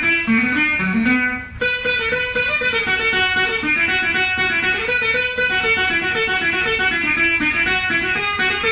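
Jakhe, a Thai floor zither, plucked with a plectrum while the other hand stops the strings on its raised frets: a steady run of quick melodic notes. There are a few sliding pitch bends in the first second and a brief drop in loudness about a second and a half in.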